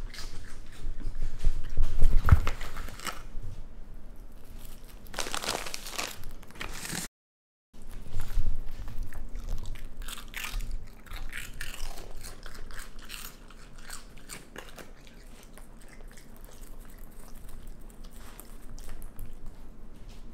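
A raccoon crunching and chewing baked cheddar cheese balls, in short bursts of crunches. The loudest crunching comes about two seconds in, with a moment of dead silence about seven seconds in.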